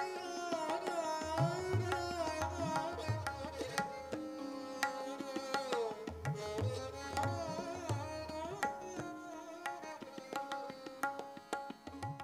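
Indian classical-style music: a stringed instrument plays a sliding, bending melody over tabla, with deep bass-drum strokes that bend upward in pitch. The music fades out near the end.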